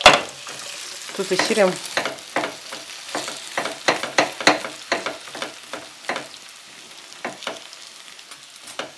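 Fried potato wedges tipped into a hot frying pan with a sharp knock, then a slotted metal spatula stirring them: repeated clicks and scrapes of the spatula against the pan over a steady sizzle of frying.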